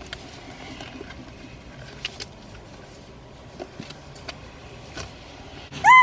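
Small scattered clicks and knocks of things being picked up and moved around on a car's back seat over a low, even background. Just before the end comes a brief, loud squeak that bends up and down in pitch.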